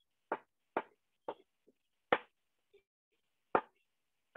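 A large kitchen knife slicing a yellow bell pepper into strips on a wooden cutting board: about six sharp knocks of the blade on the board, unevenly spaced.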